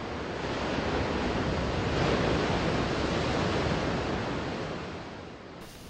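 Ocean waves washing in as a steady rush of surf, loudest about two seconds in, then fading away. It gives way to a quieter hiss near the end.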